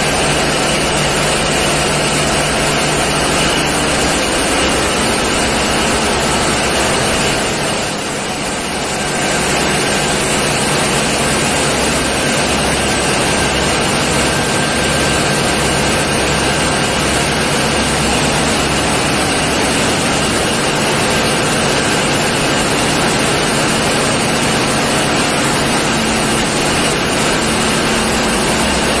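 Diesel engines running in a tugboat's engine room: a loud, steady mechanical drone with a low rumble and a constant hum, dipping slightly for a moment about eight seconds in.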